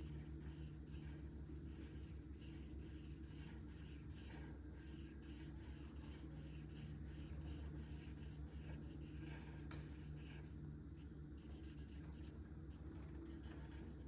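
Marker tip rubbing across paper in quick repeated colouring strokes, about three a second, faint and scratchy over a low steady hum.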